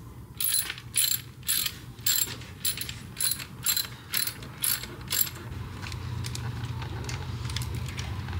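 Socket ratchet wrench clicking as its pawl runs back between strokes on a bolt, a short click burst about twice a second, stopping about five seconds in.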